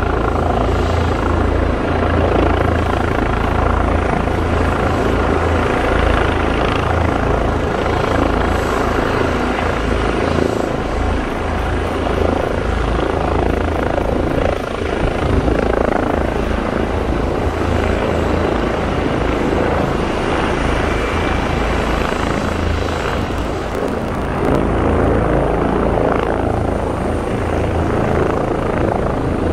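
Several Airbus EC135 and H145 police helicopters hovering low and landing close by. Their rotors make a loud, steady, deep noise with no let-up.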